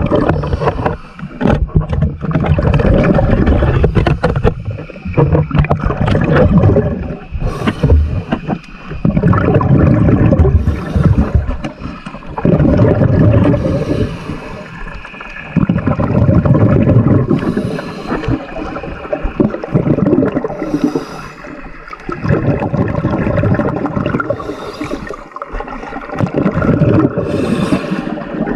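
Underwater sound of a diver breathing from a scuba tank's regulator: a short hiss on each breath in and a long rumbling gush of exhaled bubbles, repeating every few seconds.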